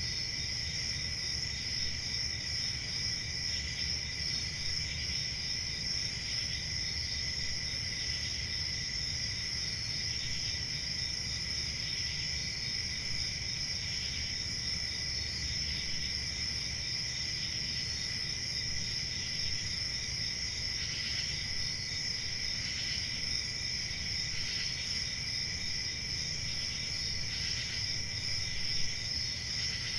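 Crickets chirping steadily, a continuous high trill, over a low background hum.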